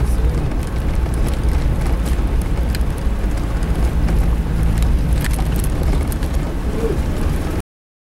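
Suzuki Jimny 4x4's engine running at low speed, heard from inside the cabin, with scattered knocks and rattles as it rolls over a rough dirt road. The sound cuts off suddenly near the end.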